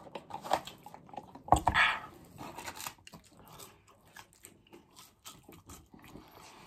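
Close-miked chewing and biting of McDonald's food, with wet mouth clicks throughout and a sharp knock followed by a brief louder crunch about one and a half seconds in.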